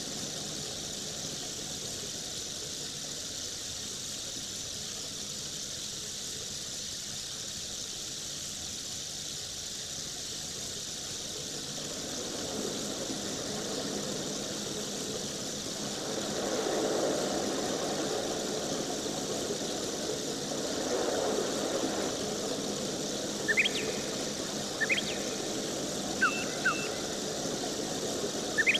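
A steady machine-like hum and hiss that swells in the middle, with five or six short, high rising squeaks near the end.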